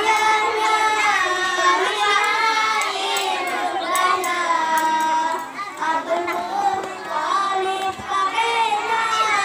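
A boy's voice chanting melodically into a handheld microphone, in long drawn-out, wavering notes, with a short break between phrases a little before six seconds in.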